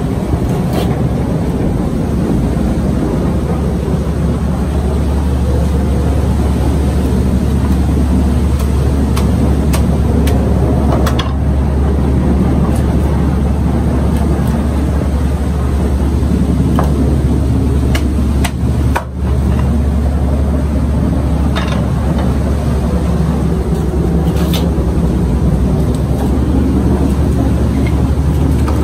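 A steady low mechanical drone, like a running engine, with a brief dip about two-thirds of the way through. A few light clicks are scattered through it.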